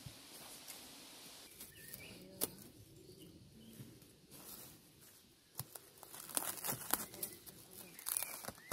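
Plastic cling film crinkling and crackling as it is pulled off the roll and stretched over a glass bowl of dough. It is loudest and densest in the second half. Earlier come softer handling sounds of the dough being worked in the bowl.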